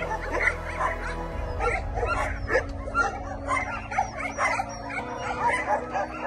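A crowd of shelter dogs barking and yipping at once, many short overlapping calls with no let-up.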